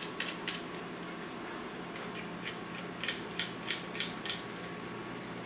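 An irregular run of light, sharp clicks, a dozen or so, over a faint steady hum: small hardware being handled and fitted back in place by hand.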